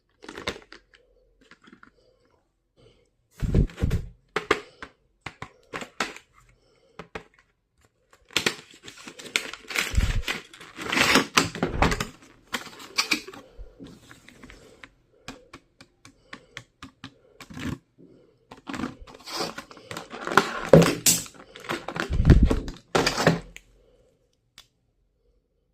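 Stationery items and their packaging handled at close range: irregular clicks and knocks of items being picked up and set down, with bursts of packaging rustling and tearing.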